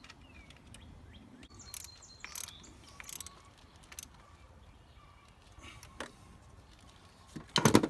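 Hand wrench turning a nut on a power terminal under a truck's hood: scattered light ratcheting clicks and metal taps, with a louder clatter near the end.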